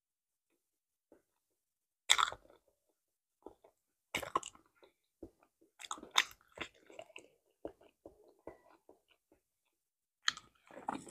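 A small ripe banana being peeled and eaten close to the microphone: bites and peel sounds, then soft chewing in short, scattered ticks. The first two seconds are almost silent, and louder sharp sounds come about two, four and six seconds in and again near the end.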